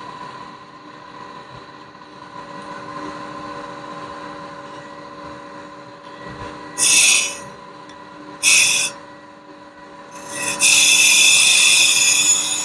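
Crankshaft grinder's grinding wheel spinning with a steady hum while a diamond dresser is brought against it to true the wheel face. It touches the wheel with two brief hisses about seven and eight and a half seconds in, then from about ten and a half seconds cuts a continuous loud hiss.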